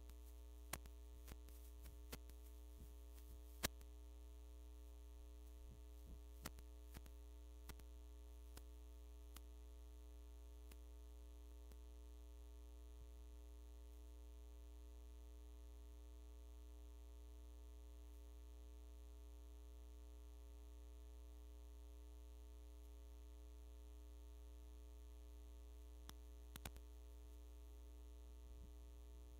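Near silence with a steady low electrical mains hum in the audio feed, and a few faint scattered clicks in the first ten seconds and again near the end.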